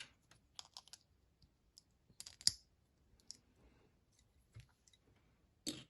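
Faint, scattered clicks and taps of a plastic Lego minifigure being handled, in small clusters with the sharpest click about two and a half seconds in.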